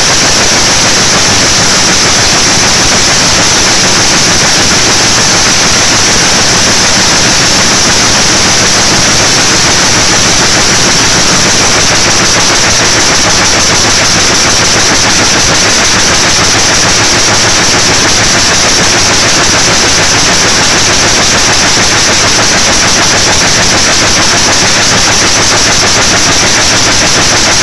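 Jacquard weaving loom running at speed: a loud, fast, unbroken clatter of the shuttle-less loom beating in weft after weft as it weaves a patterned crest into the cloth.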